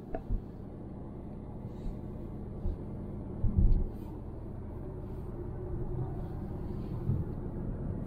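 A car driving slowly, heard from inside the cabin: steady low road and engine noise that slowly grows louder, with a couple of loud low thumps about three and a half seconds in.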